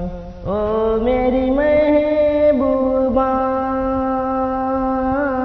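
A man singing, holding one long note after a brief breath near the start, its pitch shifting slightly a few times.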